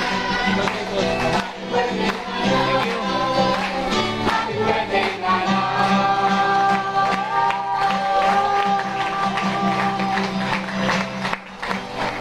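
A family group sings a Tagalog birthday song for their mother, led by a woman on a microphone, with an acoustic guitar strummed and people clapping along. A long held note comes in the middle.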